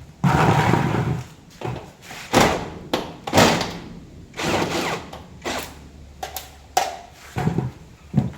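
Hand work fitting a fall-stop to a sliding panel: about eight short bursts of scraping and knocking, the longest and loudest about half a second in.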